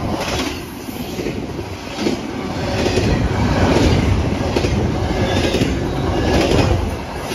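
Norfolk Southern double-stack intermodal freight cars rolling past with a steady rumble. The wheels click over the rail joints about once a second.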